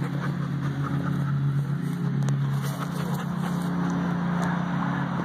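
A steady, low motor hum holding one pitch.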